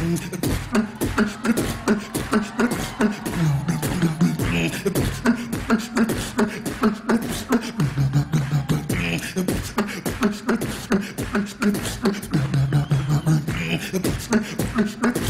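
Human beatboxing into a handheld microphone: a fast, unbroken run of vocal kick, snare and hi-hat sounds, with a low hummed bass note held for about a second three times at even spacing.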